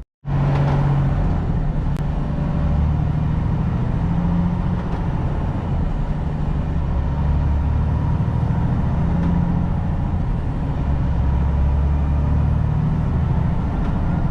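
Semi-truck diesel engine and road noise at steady highway cruising, a constant low drone that shifts slightly in pitch, after a brief cut-out at the very start.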